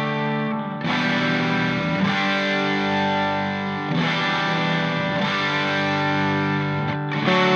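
Background music: a distorted electric guitar playing held chords that change every second or two.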